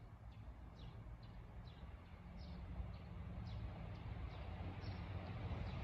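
A small bird repeating short chirps that fall in pitch, about twice a second, over a faint low rumble that grows steadily louder: a KiHa 283 series diesel express train approaching.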